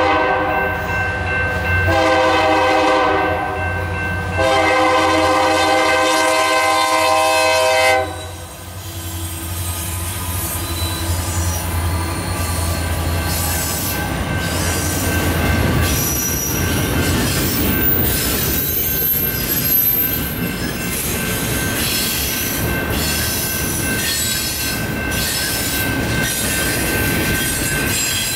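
A locomotive air horn sounds three blasts, the last and longest ending about eight seconds in. Then a double-stack container train rolls past, wheels clattering, with high-pitched wheel squeals through the second half.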